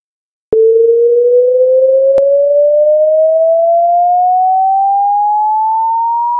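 A single loud, pure electronic tone that starts with a click about half a second in and slowly glides upward in pitch, ending about twice as high; a second short click comes about two seconds in.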